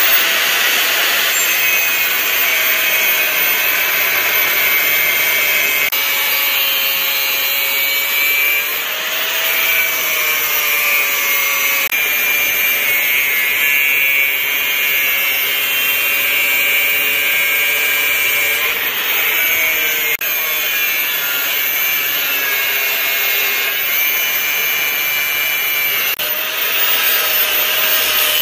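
Angle grinder with a thin cutoff disc cutting through circular-saw-blade steel: a steady high motor whine over a harsh grinding hiss, the pitch sagging slightly as the disc bites and picking up again.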